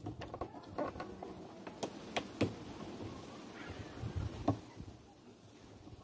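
Irregular clicks and knocks of hands working a rubber drive belt onto the plastic transmission pulley of a top-loading washing machine, with the loudest knock about four and a half seconds in.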